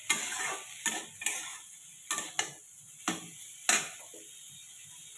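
Metal spatula scraping and knocking against a steel kadhai as thinly cut potatoes are stirred while they fry, about seven strokes in the first four seconds. A faint sizzle of hot oil runs underneath and is all that is left near the end.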